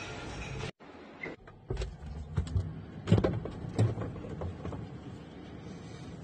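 Refrigerator door opening, with a few knocks, clicks and low thuds from the door and the things on its shelves. Steady background noise runs before it and cuts off abruptly under a second in.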